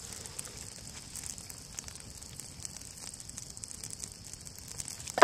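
Small fire of birch-bark tinder and kindling crackling faintly with scattered light pops, and one sharp knock near the end.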